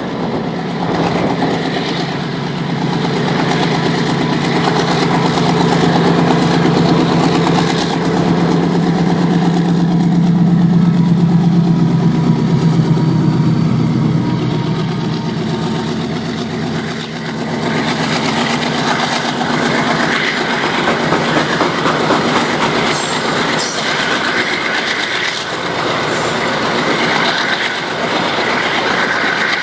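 Twin WDG-4G diesel-electric freight locomotives passing, their engines giving a steady low drone that swells to its loudest about a third of the way in. The drone then fades, and from a little past halfway the train continues with a rapid clickety-clack of wagon wheels over the rail joints.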